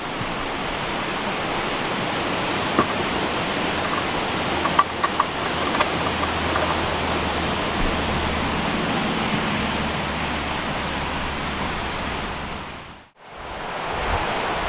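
Steady rushing of a stream, with a few faint clicks a few seconds in. The sound dips out briefly about thirteen seconds in, then resumes.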